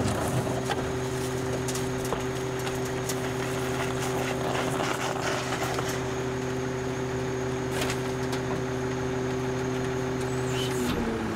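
A 1995 Ford L8000 rear-loader garbage truck's diesel engine and hydraulic packer run as a steady hum with several held tones while the packer panel cycles down. The engine stays at idle because the throttle speed-up is malfunctioning, so the packer runs slowly. A few sharp knocks of trash and metal come through the hum, and its pitch shifts just before the end as the packer cycle changes.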